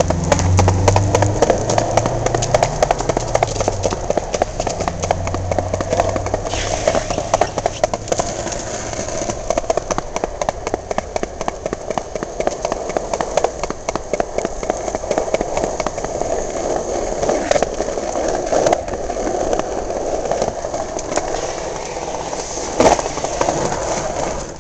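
Skateboard wheels rolling on a concrete sidewalk, a steady rolling noise with a dense, fast patter of clicks and clacks throughout. There is a low hum for the first several seconds and a sharper knock near the end.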